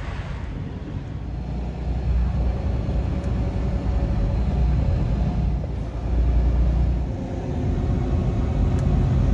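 Semi-truck's diesel engine running under way, heard from inside the cab as a steady low rumble with road noise that swells a little partway through.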